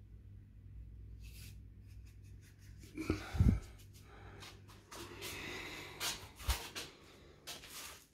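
Paintbrush rinsed in a plastic cup of water: swishing and scraping against the cup, with a dull knock about three seconds in and a smaller one a few seconds later.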